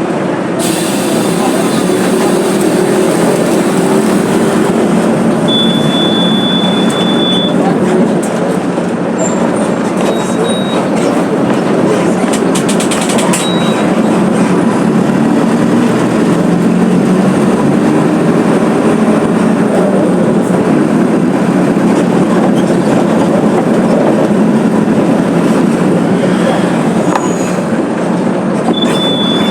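Mercedes-Benz OF 1721 BlueTec 5 bus's diesel engine running under way, mixed with road and body noise, its pitch slowly rising and falling. A few short high-pitched beeps sound through it.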